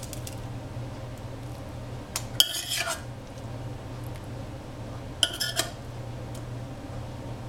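A metal spatula scraping and clinking against a steel pan and a ceramic bowl as stir-fried egg and oyster mushrooms are served out: two short bursts of clinks, about two and five seconds in, over a steady low hum.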